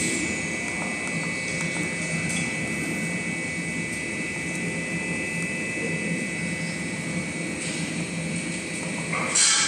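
Steady machine drone with a constant high whine, and a short, louder noisy sound near the end.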